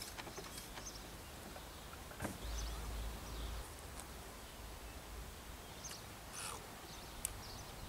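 Faint outdoor background noise with scattered short, high bird chirps, and a brief low rumble a little after two seconds in.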